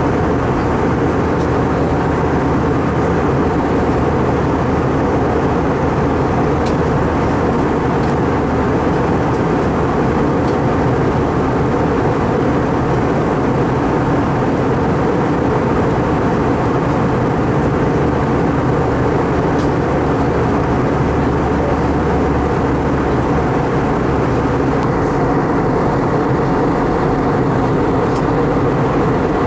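Steady cabin noise inside an Airbus A320 in flight, heard from a window seat by the engine: an even rumble of the jet engines and airflow that does not change.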